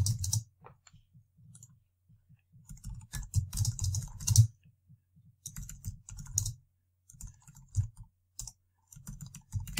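Computer keyboard typing in short bursts of key clicks, with brief pauses between words.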